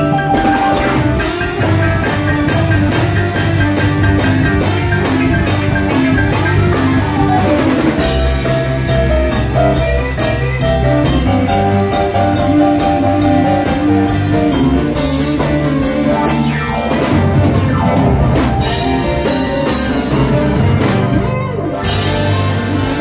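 Live band playing with a steady beat: drum kit, electric guitar, keyboard and a horn section of saxophone and trumpets.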